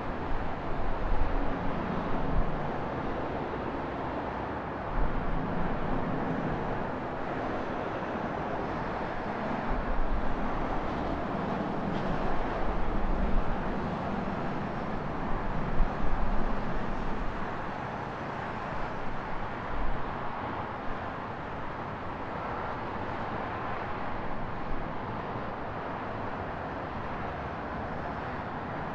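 Steady road and traffic noise with a low, gusty wind rumble, heard from an action camera on a moving bicycle; it swells louder a few times.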